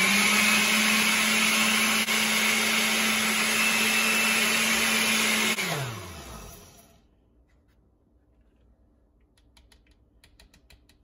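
Oster 14-speed countertop blender running on a liquid mix, its motor stepping up to a higher speed at the start and holding a steady whine. About five and a half seconds in it is switched off and the motor's pitch falls as it spins down. A few faint clicks follow near the end as the lid is lifted off.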